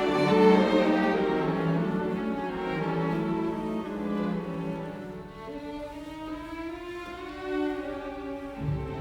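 Background music on bowed strings, violin and cello, playing long held notes; it grows softer after the opening seconds.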